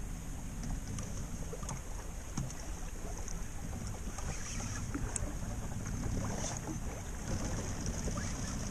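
Steady wind rumble on the microphone and river water lapping against a small boat's hull, with scattered faint clicks.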